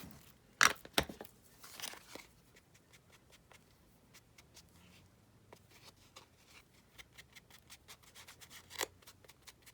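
Paper and small craft tools being handled: a few sharp clicks and rustles in the first two seconds, then a run of light ticks and taps, with one louder tap near the end.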